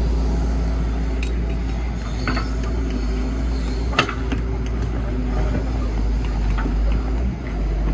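Excavator engine running steadily, with a few metallic clanks and knocks from the machine at work; the sharpest clank comes about four seconds in.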